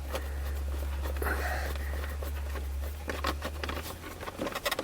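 Removing the last Phillips screw from a Dodge Stratus plastic steering column cover: a low steady hum, then light plastic clicks and rattles from about three and a half seconds in as the cover comes loose.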